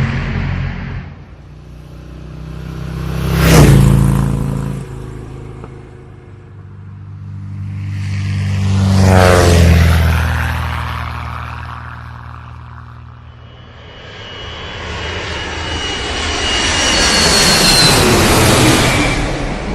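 Aircraft flying past three times, each pass swelling up and fading away, with the engine pitch dropping as it goes by. The last pass carries a high whine.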